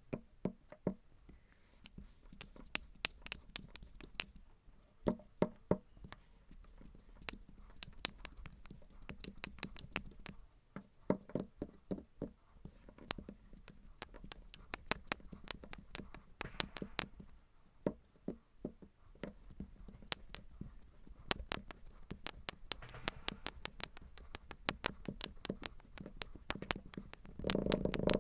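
Kinetic sand being handled close up: an irregular string of sharp clicks and taps with soft crumbly noise between them, getting denser and louder right at the end.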